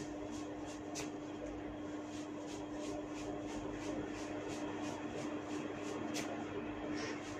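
Hair cracking: sharp pops as sections of hair are tugged at the scalp, two clear ones about five seconds apart and a fainter one near the end, over a steady background hum.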